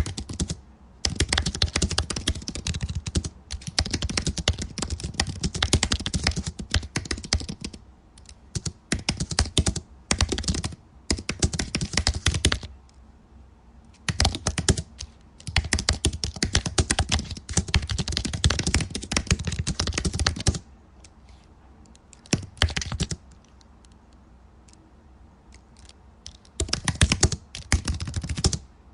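Typing on a laptop keyboard: rapid runs of key clicks in bursts of several seconds, broken by short pauses.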